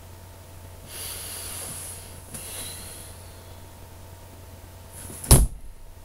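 A person breathing out heavily through the nose, a long breath and then a shorter one, over a faint steady electrical hum. About five seconds in, a single loud thump.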